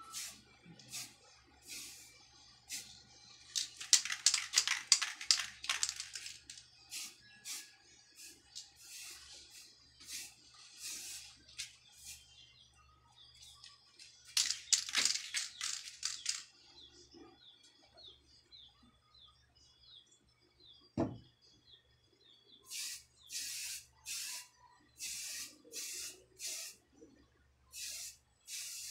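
Aerosol spray paint can spraying in bursts of hiss: many short squirts, with two longer sprays of about two seconds, one a few seconds in and one about halfway, and a quick run of short squirts near the end.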